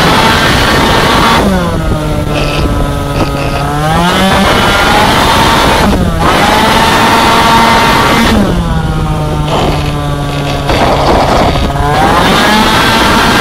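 Two-stroke racing scooter engine at race pace, heard from on board: the revs drop sharply twice, hold low for a couple of seconds, then climb again, with a short break in the sound about halfway through.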